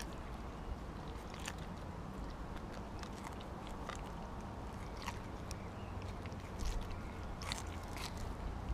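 Siberian husky eating a whole raw mackerel: irregular crunching bites and wet chewing, with sharp clicks scattered through.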